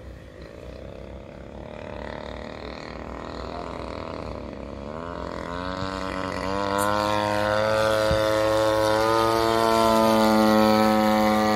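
Propeller engine of a radio-controlled model airplane flying, growing steadily louder; its pitch climbs about five seconds in and then holds steady.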